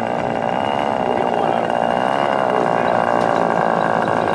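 Small model airplane engine running steadily and loudly at high speed, with a slight wavering in pitch.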